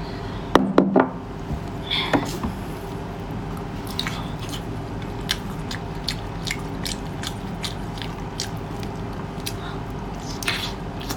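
Close-miked chewing of a mouthful of sea cucumber dipped in chili oil: wet smacking mouth clicks. There is a louder cluster of bites near the start, then a steady run of short clicks.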